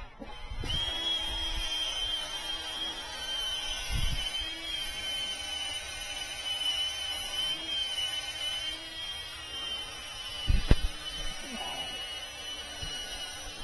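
Handheld power tool starting up just under a second in and running steadily, with a high, slightly wavering whine and a hiss, cutting or grinding at metal on a rusty truck seat base. A single sharp knock comes near the end.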